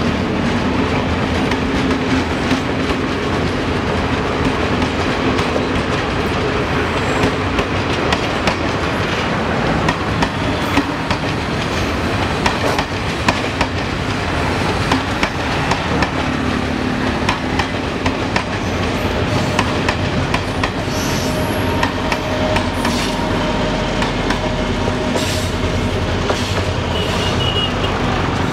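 Sri Lanka Railways S11 diesel multiple unit train passing close by: the coaches' wheels click steadily over the rail joints with a continuous rumble, and in the last several seconds the steady hum of the rear power car's diesel engine comes in as it goes by.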